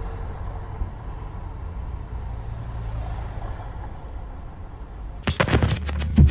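Steady low rumble of city traffic. About five seconds in, music with a heavy beat cuts in.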